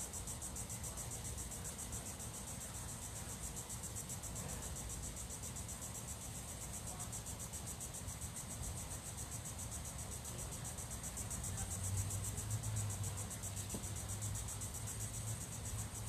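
Insects chirring in a steady, high-pitched, fast pulsing trill. A faint low rumble swells a little about three-quarters of the way in.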